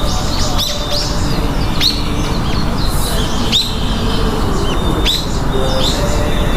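Small birds chirping: short, sharp calls that bend in pitch, repeated every half second to a second, over a steady low noise.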